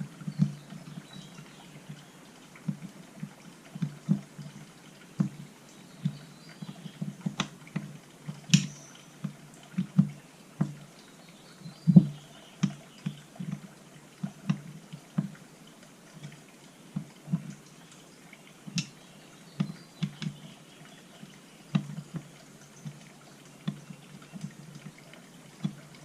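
Irregular small clicks and taps of metal carburetor parts being handled and fitted during reassembly on a workbench, a few a second, with a sharper knock now and then.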